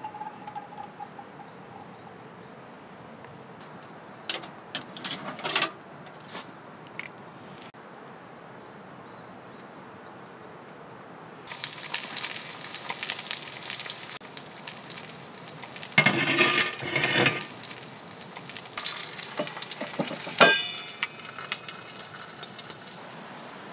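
Sausages and an egg sizzling in a small steel frying pan, with metal clatter, after a few light metal clinks in the first half. About twenty seconds in, a metal lid is set on the pan with a ringing clang.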